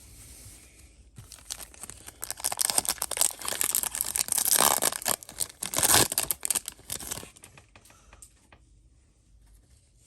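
Foil Yu-Gi-Oh! booster pack wrapper being torn open and crinkled: a dense crackling rush that starts about a second in, is loudest near the middle and dies away about seven seconds in.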